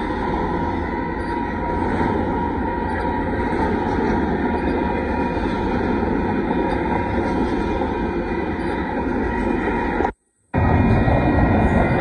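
KCSM double-stack intermodal freight train rolling through a grade crossing: a steady, loud run of wheel-on-rail noise from the passing cars. The sound cuts out completely for about half a second near the end.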